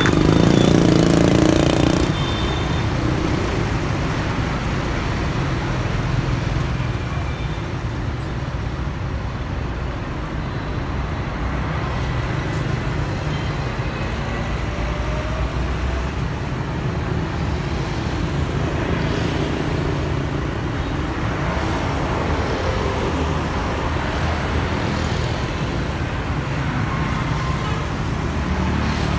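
Busy street traffic, mostly motorbikes with some trucks and buses, passing steadily. A city bus passes close by at the start, the loudest part, for about two seconds before the traffic settles back to a steady hum.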